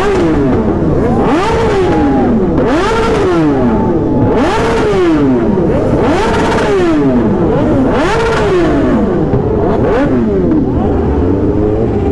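Several superbike engines revving hard in the rider's group, loud, with overlapping rises and falls in pitch about every second and a half.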